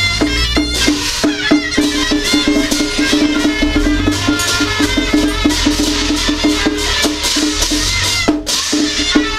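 Chinese traditional ritual percussion: drum and wood-block strikes at about five a second, with ringing metallic tones above them.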